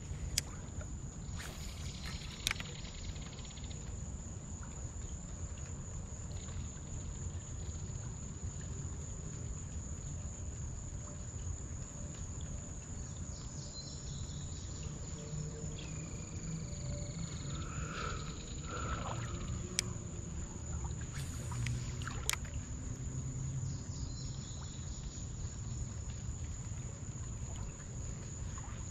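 Summer creek-side ambience: a steady, high-pitched insect buzz over a low rumble, with a few sharp clicks scattered through it.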